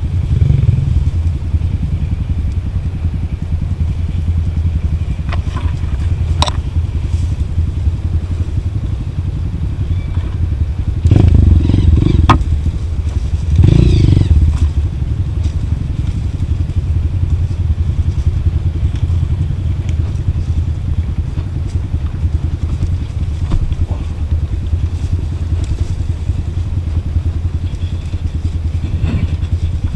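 Trail motorcycle engine running on a rough downhill track, a steady low rumble with two louder surges about eleven and fourteen seconds in, and a few sharp knocks.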